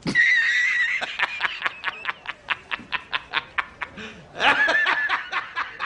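A man's loud, high-pitched cackling laugh: a held 'haaa' at the start, then rapid short bursts of laughter about five a second, swelling again into a second held peak about four and a half seconds in.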